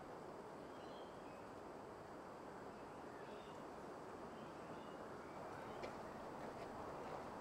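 Quiet outdoor ambience: a steady low background hiss with faint bird chirps, and a few light clicks near the end.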